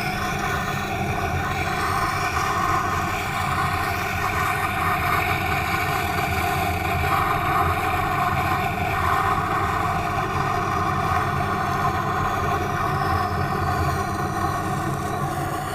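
Tormek T8 wet sharpener running: a steady motor hum with the scraping hiss of a kitchen knife blade being ground on the turning wet stone.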